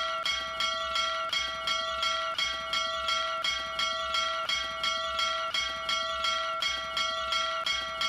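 Small hanging metal bell rung rapidly by a hand tugging the cord on its clapper, with quick, even strikes keeping a steady ring going.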